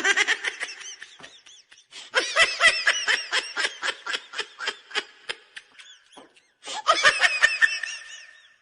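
High-pitched laughter sound effect: rapid giggling pulses in three fits, a short one, a long one and a short one near the end.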